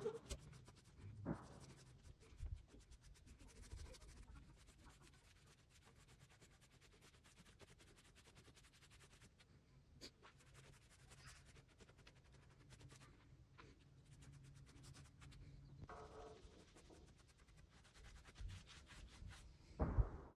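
Faint rubbing and light scratching of a cloth pad being wiped over planed wooden boards, with soft knocks about a second in and near the end.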